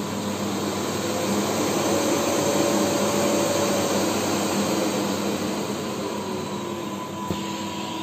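Delta Lux DL-0836 bagless cyclone canister vacuum cleaner running, its motor whine rising as the suction power regulator is turned up, then falling back again. A light knock near the end.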